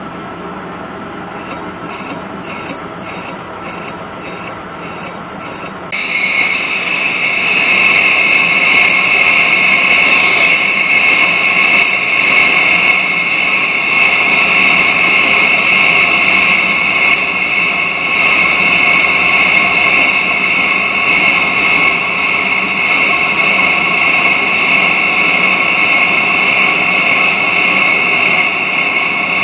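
Metal lathe skimming a cast-iron brake disc. The spindle runs steadily, then about six seconds in the sound jumps to a much louder, steady high-pitched ring as the cutting tool bites into the disc face and keeps cutting.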